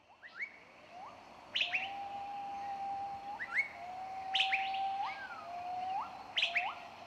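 Chirpy, whistling intro sound effects: short upward-flicking chirps, each led by a sharp click, come about every second or two over long held whistle notes that flick upward at their ends. They start quietly and grow louder about a second and a half in.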